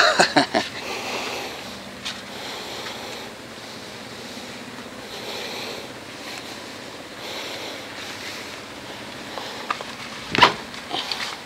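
A steady outdoor rush of wind and sea water, swelling and fading every two or three seconds. A sharp knock comes right at the start and another about ten seconds in.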